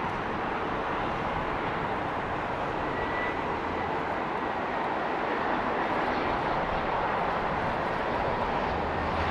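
Jet aircraft engine noise: a steady, even rush with no clear changes.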